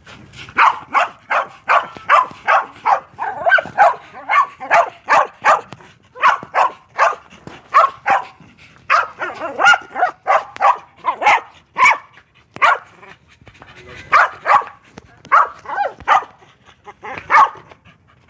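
A dog barking over and over in runs of short barks, about two or three a second, with brief pauses between the runs.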